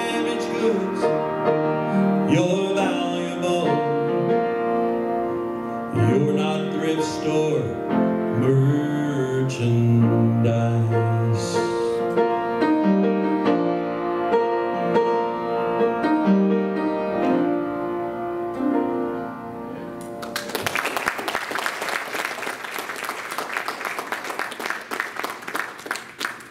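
A sung song with piano accompaniment. The music ends about twenty seconds in and gives way to several seconds of applause.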